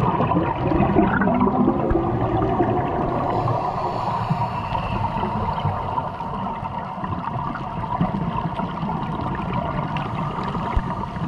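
Underwater sound on a scuba dive: a steady muffled rumble with the gurgling of divers' exhaled regulator bubbles.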